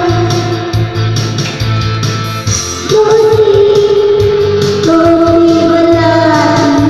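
A voice singing three long held notes, the second higher than the first and third, over a band backing with guitar and a steady, pulsing bass.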